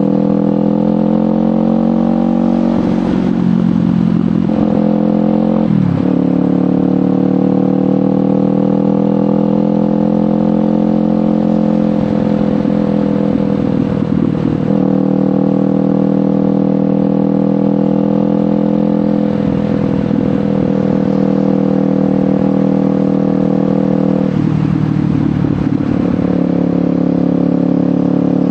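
Kawasaki Ninja 500 parallel-twin engine through a LeoVince GP Corsa Evo slip-on exhaust, running at steady revs while riding. The note briefly breaks up about four times, with one quick drop in pitch about six seconds in.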